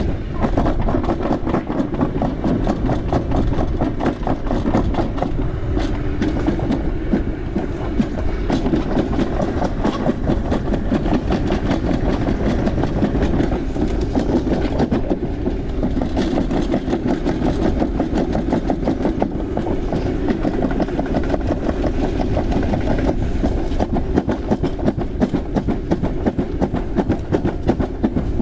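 Alpine coaster sled running along its steel track, its wheels giving a fast, steady clickety-clack rattle over a continuous rumble.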